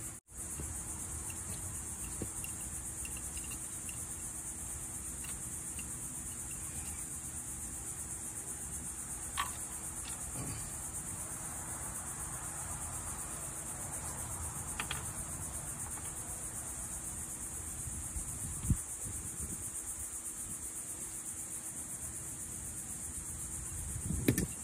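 Steady high-pitched insect chorus, with a few faint knocks and taps.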